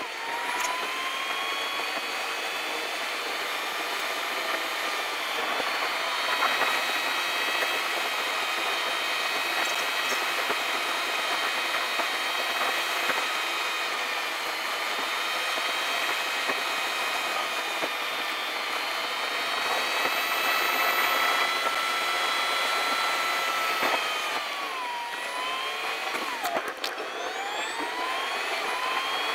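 A car's engine and road noise inside the cabin, sped up with the time-lapse footage into a steady high whine. Near the end the whine dips and glides in pitch.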